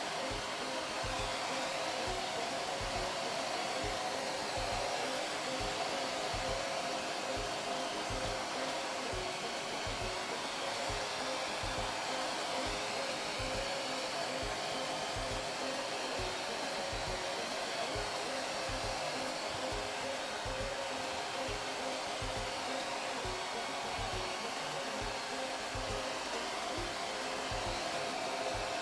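Handheld human hair dryer blowing steadily at a constant speed, drying a cat's fur after a shampoo.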